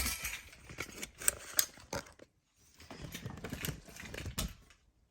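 Hands working at the interior cover of a Schlage digital deadbolt: irregular plastic clicks and rubbing, with two sharp clicks a little over a second in.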